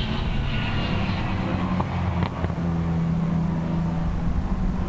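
Jaguar XJS racing car's engine running hard at a steady pitch as the car drives past and away, with a brief dip in the note about two seconds in.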